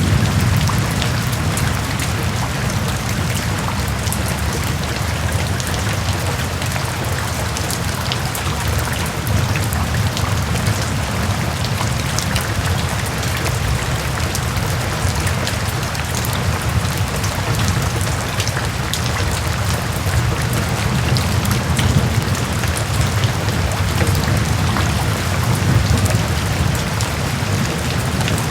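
Steady heavy rain, with many separate drops ticking sharply, over a constant low rumble.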